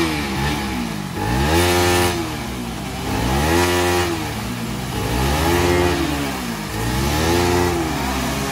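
Motorcycle engine revved up and let fall about five times in a row, its rear wheel spinning in shallow stream water and throwing up a spray that hisses under the engine. The wheel is spun in the water to wash the bike.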